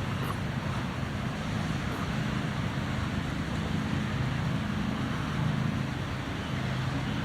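An engine running steadily, a low even rumble.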